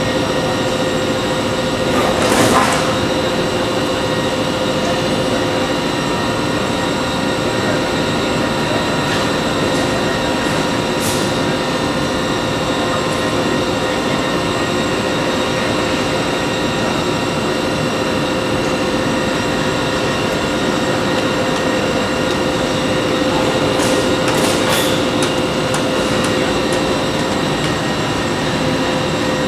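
SPC flooring extrusion line running: a steady machine hum with a constant whine of fixed tones, broken by a few short clanks about two seconds in, around eleven seconds and near the end.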